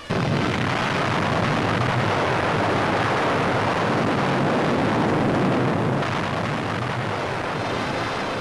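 Dynamite demolition of a huge wooden hangar: the blast comes in suddenly and runs straight on into a long, loud, even noise of the structure breaking up and collapsing. It eases a little about six seconds in.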